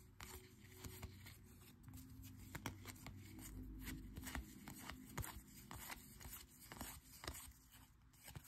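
Faint, irregular soft flicks and slides of Topps baseball cards as they are thumbed one at a time through a stack held in the hand.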